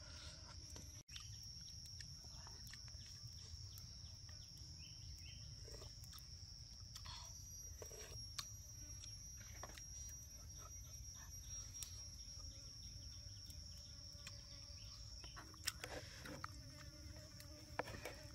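Insects keeping up one steady high-pitched drone, with scattered soft clicks and taps from handling food and utensils.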